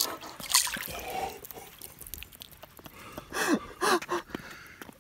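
Clicks and rustling of fingers handling the phone, then three or four short wordless voice sounds about three to four seconds in, each falling sharply in pitch, from a man straining while he handles a heavy pike.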